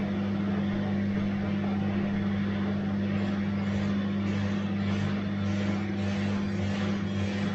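Bosch washing machine running: a steady low motor hum, joined about three seconds in by a rhythmic swishing from the drum, about two strokes a second.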